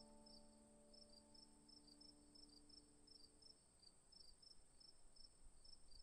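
Faint insect chorus: a steady high drone with quick repeated chirps, about four a second. Held notes of background music die away about three and a half seconds in.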